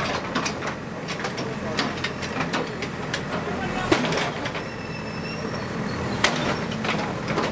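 JCB backhoe loader's diesel engine running steadily while its bucket works against a brick wall, with scattered clatter of debris and a sharp knock about four seconds in and another near six seconds. A brief high squeal sounds around five seconds in.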